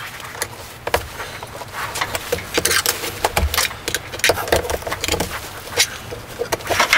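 Screwdriver prying at a mortise lock case in a door edge, working it loose: a run of irregular clicks and scrapes.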